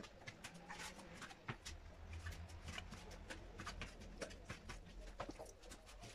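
Kitchen knife cutting cleaned sheep tripe on a plastic cutting board: a run of faint, irregular taps and scrapes as the blade meets the board.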